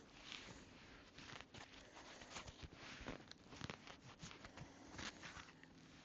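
Faint footsteps with small irregular crunches and clicks, a person walking.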